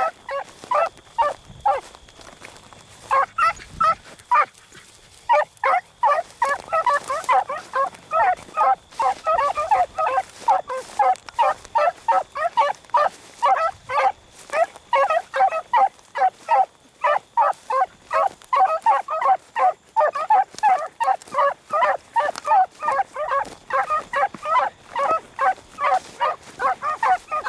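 A pack of beagles baying in a steady, overlapping chorus of short repeated calls while running a rabbit's scent trail, with a brief lull about four seconds in.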